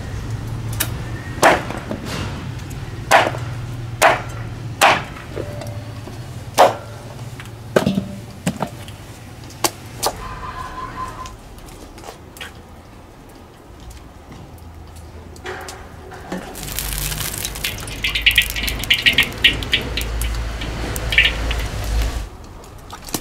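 Cleaver chopping through pumpkin onto a wooden cutting board, about eight sharp strokes over the first ten seconds. Later, oil heating in a wok sets up a steady hiss with dense crackling for several seconds.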